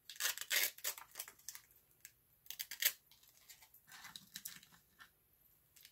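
A plastic dessert tub and its packaging being handled, making an irregular run of crinkles and light clicks.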